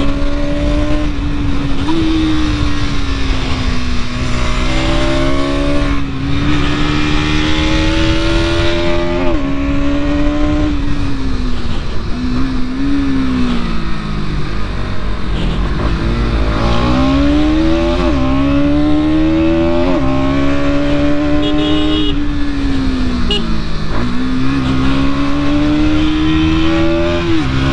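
Bajaj Pulsar NS200's single-cylinder engine under way, its note climbing through the revs and dropping sharply at each gear change several times. About halfway through it falls away to a low note off the throttle, then pulls up through the gears again.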